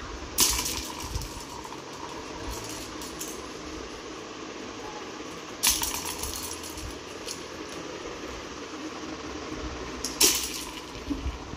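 Plastic cat track toy clattering as a hand flicks its spring-mounted toy mouse and knocks the ring: three sharp rattles about five seconds apart, with a few lighter clicks between.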